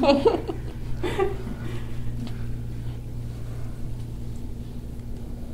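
A steady low hum, with a few spoken sounds in the first second or so.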